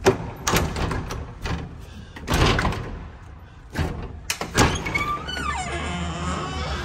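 Heavy wooden door with a bolt latch being unlocked and pushed open: a string of knocks and clatters from the latch and door panels. About five seconds in, steady street traffic noise comes through the open doorway.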